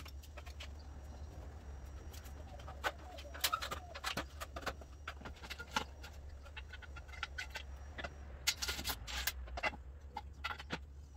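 Scattered clicks and knocks as a roof side rail is handled and set down on a minivan's roof, with a cluster of sharper knocks about three seconds in and another near the end, over a steady low hum.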